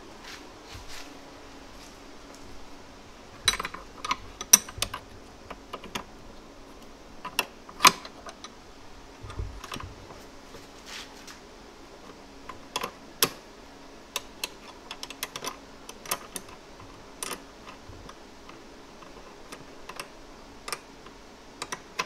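Irregular light metallic clicks and taps of a seat belt anchor plate and its bolt being handled and threaded in by hand, the sharpest about 4, 8 and 13 seconds in.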